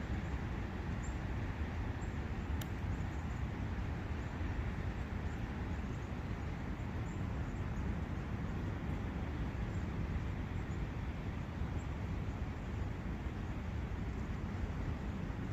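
Steady rush of a forest brook, with faint high bird chirps now and then and a single brief click about two and a half seconds in.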